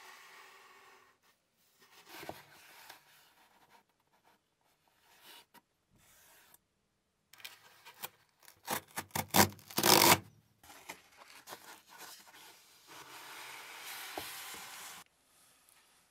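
Gloved hands handling a cardboard Amazon mailer envelope: scattered rubbing and scraping of cardboard, a loud crackling tear about nine to ten seconds in as the envelope is torn open, then a couple of seconds of steady rubbing as the box slides out.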